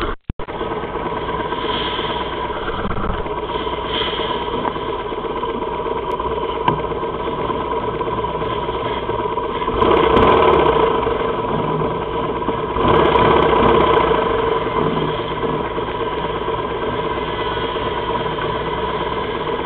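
Motorcycle engines idling steadily close by, with two louder stretches of engine noise about ten and thirteen seconds in as drag-racing bikes at the starting line rev up.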